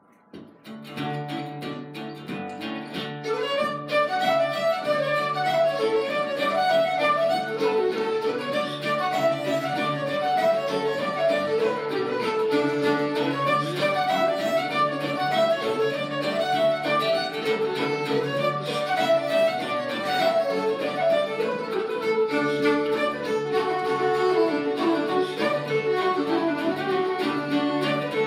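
Flute, fiddle and acoustic guitar playing an Irish barndance tune live, the fiddle and flute carrying the melody over the guitar's backing. The music begins softly and fills out about four seconds in.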